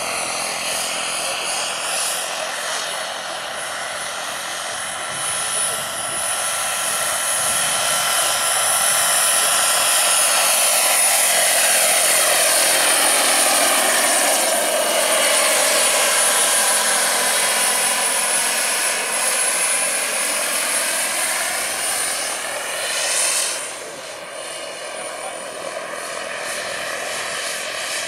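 Large turbine-powered RC scale EC-120 helicopter in flight: the model gas turbine's steady high whine over the rotor noise. It grows louder as the helicopter passes close and the pitch sweeps with the pass. The sound drops off suddenly about three-quarters of the way through.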